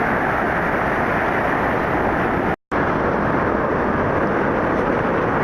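Steady rush of heavy surf breaking, cutting out completely for an instant about two and a half seconds in.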